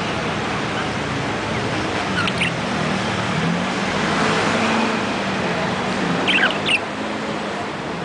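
Budgerigar giving short chirps: a couple about two seconds in and a louder quick group about six and a half seconds in, over a steady background hiss and rumble.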